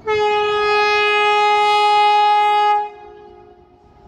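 Vande Bharat Express train horn sounding one long blast of nearly three seconds as the train approaches: a loud single note that sags a little in pitch near the end and cuts off sharply.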